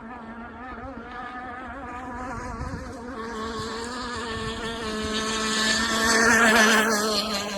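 Zenoah two-stroke gas engine of an RC hydroplane (Zippkits SLR Missile Thunderboat) running at speed with a steady high buzz. It grows louder as the boat passes close, loudest about six seconds in, then starts to fade.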